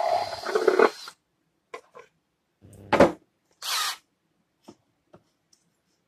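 Cordless drill running in two short bursts, boring into a white PVC end cap, with a loud knock about three seconds in and light clicks of plastic parts handled on the workbench.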